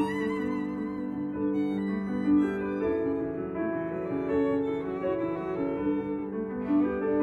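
Violin playing a slow melody of long held notes with vibrato.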